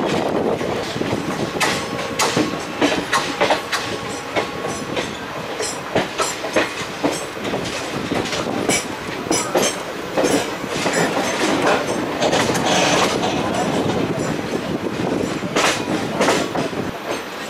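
Passenger train coaches rolling over rail joints and points, heard from an open coach door: a steady rumble with irregular clicks and clatter from the wheels.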